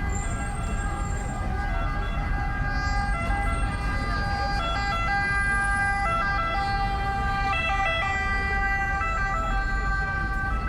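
Roman ambulance siren sounding a two-tone call, its pitch stepping back and forth between two notes, over a low rumble of street traffic.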